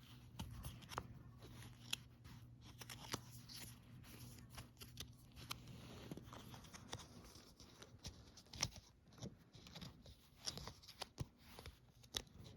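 Faint handling noises: irregular small clicks and rustles, as of a Happy Meal toy and its packaging being handled.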